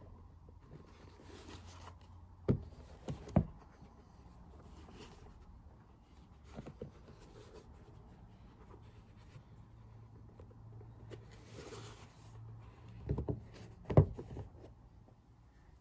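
Soft rubbing strokes come and go, with a few sharp knocks: two about two and a half and three and a half seconds in, and two more near the end, the last of them the loudest.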